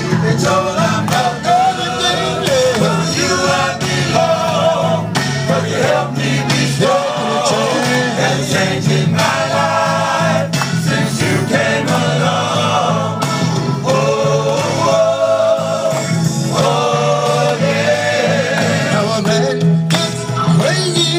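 A small group of men singing gospel, the lead voice amplified through a handheld microphone and loudspeaker, over a backing with a steady bass line. Hands clap along.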